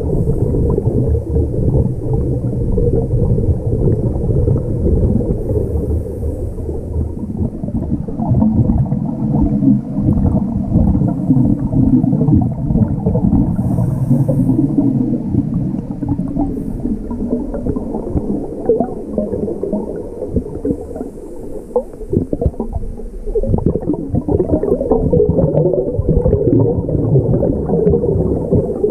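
Scuba diver's breathing picked up underwater by the camera: a continuous low rumble and gurgle of exhaled bubbles from the regulator, with a few short hisses of inhalation.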